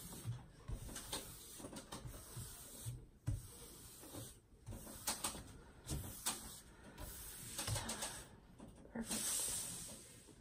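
Hands sliding over and smoothing a large diamond painting canvas with its plastic cover film, rustling and crinkling the film and canvas against the wooden table, with a few short knocks between.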